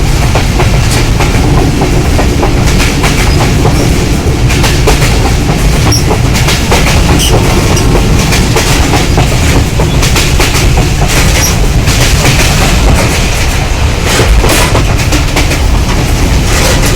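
Passenger train rolling at speed, loud and steady: a heavy low rumble from the coaches, with rapid wheel clicks and clacks over the rail joints.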